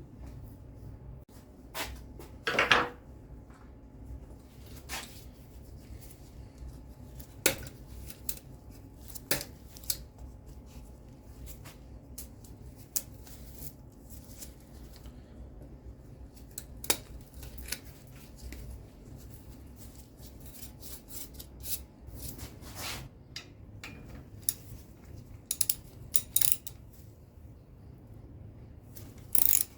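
Scattered clinks and knocks of metal tools against bicycle parts during workshop work, with a longer scrape about two and a half seconds in. A quick, even run of ratcheting clicks starts right at the end.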